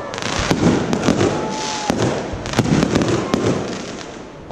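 Aerial fireworks bursting overhead: repeated sharp bangs over dense crackling from the shells' sparkling stars, with a short whistling tone about a second in. The crackle thins out and quietens just before the end, when another bang comes.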